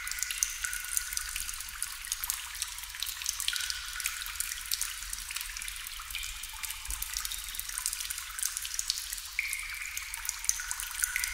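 Water drops falling into water: many irregular drips a second, some ringing as short high plinks, over a light trickling hiss.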